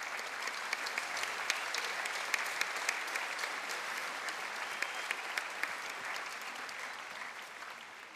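A large audience applauding, a dense patter of many hands clapping that starts sharply and dies away gradually near the end.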